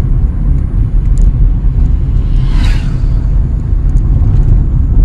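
Car running along a road, heard inside the cabin: a steady low rumble of engine and tyre noise. A brief higher sound about two and a half seconds in.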